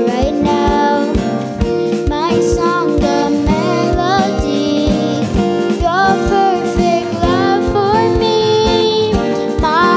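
A young girl singing a worship song, accompanied live by acoustic guitar and a steady drum beat.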